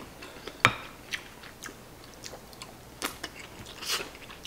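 Eating sounds: a spoon scoops rice and omelette from a bowl with a sharp clink about half a second in, followed by soft chewing and small mouth clicks.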